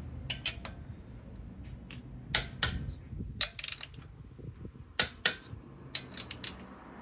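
Hand tools being handled: sharp metallic clicks, several in pairs and a few short rattling runs, from a torque wrench and socket, over a low steady background hum.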